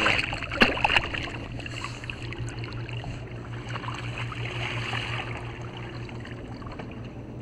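A released tautog splashing at the surface beside a kayak, a few sharp splashes in the first second, then water lapping and trickling against the hull.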